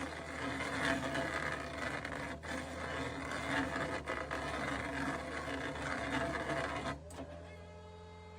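Stump-twisting machine working, a steady engine hum under a rough, grinding mechanical noise. About seven seconds in the grinding drops away, leaving a quieter, steady engine hum.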